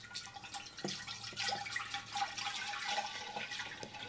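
Cranberry-pineapple juice pouring from a plastic jug into a large glass drink dispenser: a steady stream splashing into the liquid already inside.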